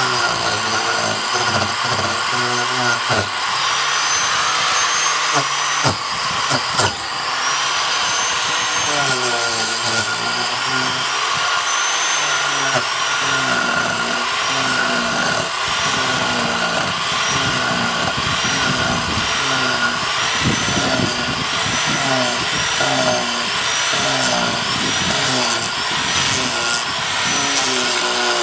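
Handheld power tool running under varying load as it is worked into rotted log wood, its whine dipping and recovering about once a second. A few sharp knocks in the first several seconds.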